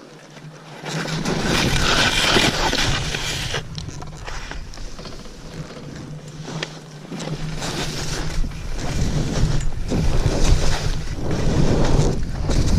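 Skis scraping and hissing over snow on a steep descent, in surging swells, with wind rumbling on the microphone.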